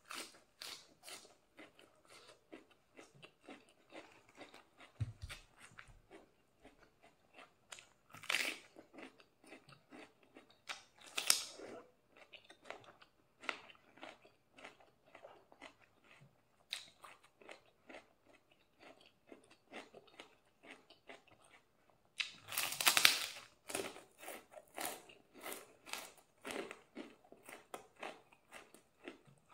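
A person chewing and biting crunchy food, raw vegetables among it, close to the microphone: quick chewing strokes throughout, with louder crunchy bites about 8 and 11 seconds in and a longer burst of crunching around 23 seconds.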